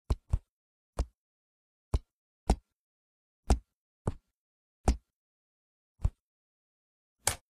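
Fingertips tapping on a hard desk surface: about ten single taps at an uneven pace, one of them a quick double near the middle.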